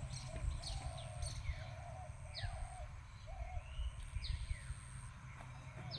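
Birds calling outdoors: short, sharp whistles fall steeply in pitch, repeated every second or so, over a lower wavering call. A thin high buzz comes and goes, and a steady low rumble runs underneath.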